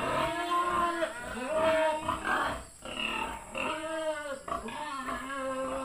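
A domestic pig squealing over and over in a run of long, wavering calls, the hungry squeals of a pig waiting to be fed.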